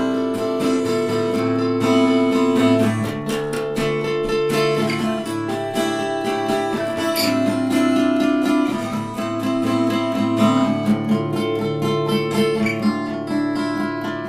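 Instrumental acoustic guitar music: steady plucked notes over held low notes.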